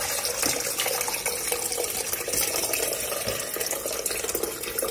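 Hot water pouring in a steady stream out of a tipped glass jar packed with cucumbers into a saucepan: the scalding water is being drained off the cucumbers.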